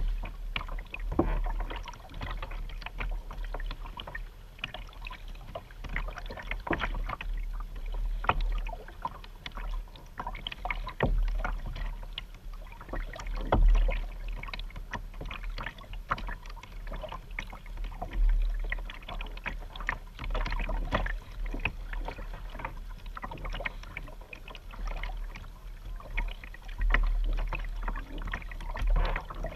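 Paddling a Vibe Yellowfin 100 sit-on-top plastic kayak: a double-bladed paddle dips and splashes in the water in irregular strokes, with water sounds around the hull. A low rumble swells and fades throughout.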